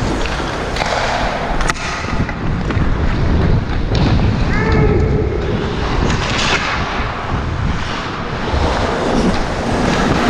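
Ice hockey skates gliding and scraping on the ice, with wind rushing over the GoPro microphone. There is a sharp knock about two seconds in and a short shout near the middle.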